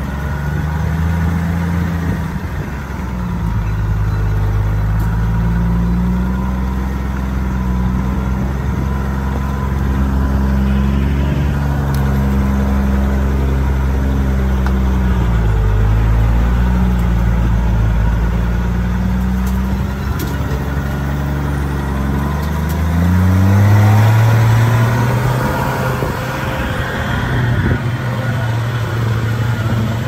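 Off-road 4x4's engine running at low revs while crawling over rocks, its pitch wavering up and down, with a rise in revs about three-quarters of the way through.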